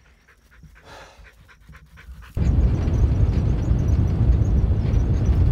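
A dog panting faintly. About two and a half seconds in, this cuts suddenly to the loud, steady noise of a four-wheel-drive ute driving along a dirt track.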